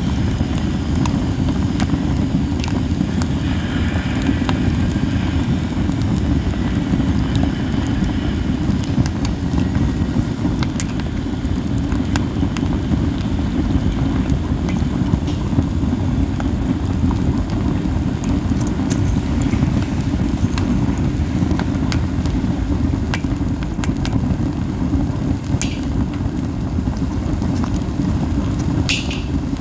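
Campfire of burning pine cones: a steady low whooshing rumble from the strong flames and wind, with gentle, scattered crackles and pops and a couple of sharper snaps near the end.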